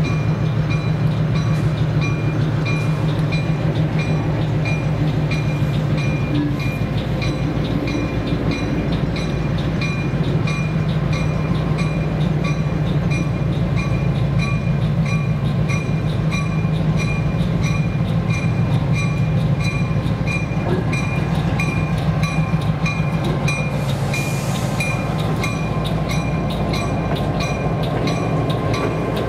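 EMD SW1001 switcher locomotive's diesel engine running steadily as it rolls slowly past pulling passenger coaches, with its bell ringing in an even rhythm throughout. A short hiss of air late on.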